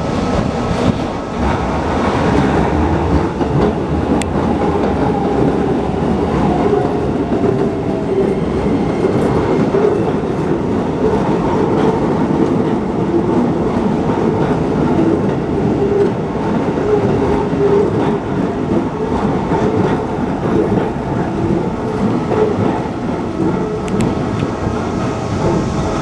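Electric commuter trains running through a level crossing at close range: the steady rumble and rapid clatter of wheels over the rails, continuing without a break.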